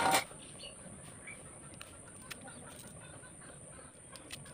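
A brief sharp clink of a steel knife against a stainless-steel tiffin box, then a quiet stretch with a steady high-pitched whine and faint scattered ticks as green chillies are slit over the box.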